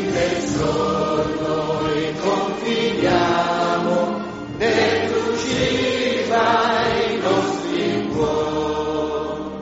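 A congregation sings a hymn together in held, sustained phrases. The singing grows quieter near the end as the hymn closes.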